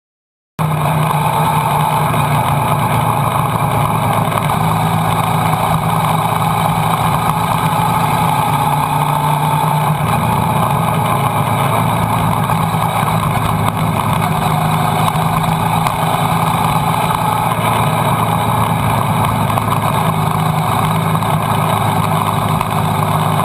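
Motorcycle engine running steadily at riding speed, with a heavy rush of wind over it; the sound starts abruptly about half a second in.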